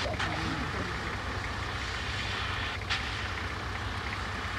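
Steady low drone of 4x4 vehicle engines running, with an even hiss over it and a couple of brief clicks, one right at the start and one about three seconds in.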